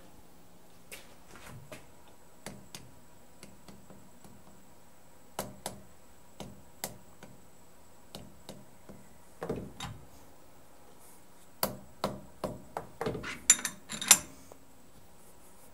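Small steel workpieces being handled in a milling-machine vise and then tapped down with a soft-faced mallet to seat them: scattered light metallic clicks and knocks, then a quick run of taps near the end, the last two the loudest.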